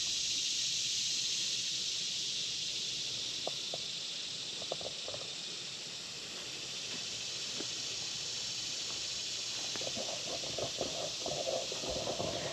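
Insects chirping in the background, a steady high-pitched hiss-like drone, with a few faint ticks and rustles toward the end.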